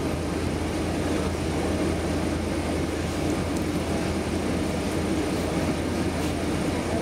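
Steady low engine hum of a slow-moving road vehicle, heard from inside its cabin.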